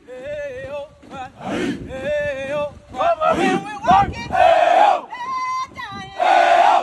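Military marching cadence: a single voice calls out sung lines and the marching formation shouts back loudly in unison, call and response.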